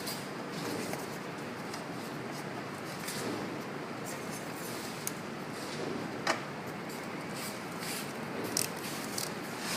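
Scattered small clicks and light scraping of small parts and tools being handled during a motherboard and battery swap, over a steady hiss. The loudest click comes about six seconds in.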